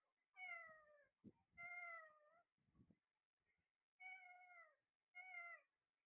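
Caged Alexandrine parakeets giving four short calls, each a clear pitched note that dips slightly, with a couple of soft knocks between them.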